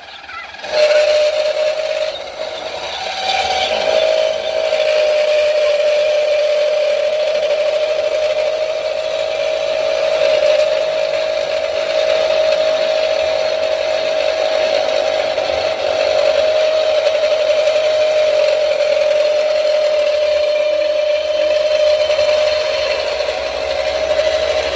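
Homemade lathe running steadily under its motor, giving a whine that holds one pitch, with a faint rattle above it. The machine is on its first test run.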